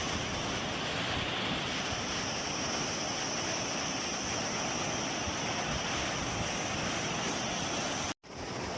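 Steady rushing roar of a waterfall, with some wind on the microphone. The sound cuts out for a moment near the end, then carries on.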